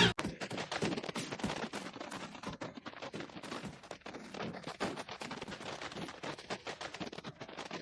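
Dense, irregular crackling: many small sharp pops in quick succession, fairly quiet, stopping suddenly at the end.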